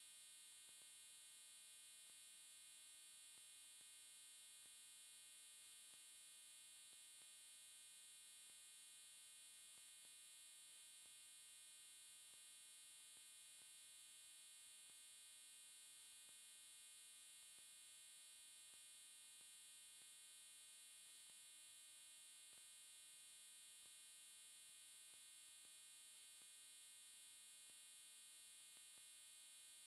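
Near silence: only a faint, steady electrical hum with a high whine and no other sound.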